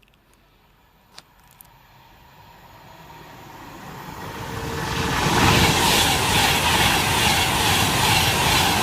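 Class 390 Pendolino electric train approaching and passing through the station at speed without stopping. A rushing rumble of wheels and air swells from faint to loud over a few seconds, then holds steady as the train goes by.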